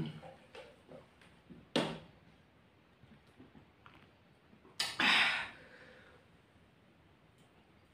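A man drinking from a plastic blender jar: a short sharp knock about two seconds in and a loud breathy exhale about five seconds in, with faint handling sounds between.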